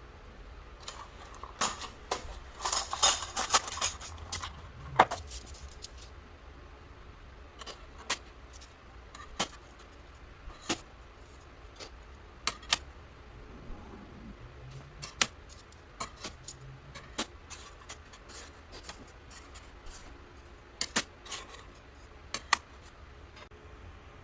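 Small hard parts rattling and jingling together for a couple of seconds, followed by scattered sharp clicks and taps at irregular intervals of about a second.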